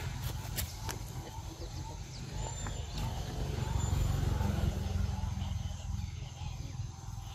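Outdoor ambience: a steady low rumble with a few faint high chirps, and a couple of sharp clicks in the first second.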